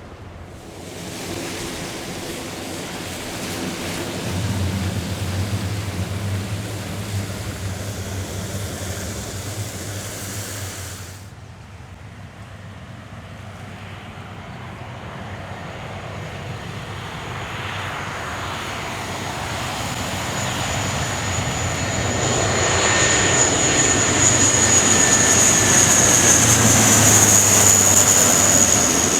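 Lockheed C-130J-30 Super Hercules turboprops running, a steady low propeller hum under a rushing noise. It cuts off about 11 seconds in, and a second C-130J then grows steadily louder, with a high turbine whine coming in over its propeller hum near the end.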